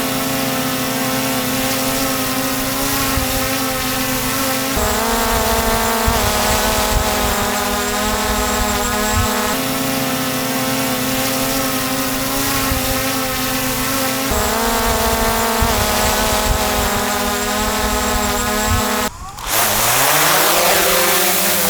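Small DJI camera drone's propellers and motors hovering with a steady, multi-toned whine. Near the end the sound cuts out for a moment, then comes back with a hum rising in pitch as the rotors spin up.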